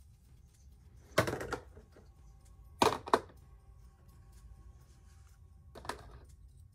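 A few sharp clicks and knocks from handling a small plastic miniature on a display stand: one about a second in, a quick pair near three seconds, and a lighter one near the end.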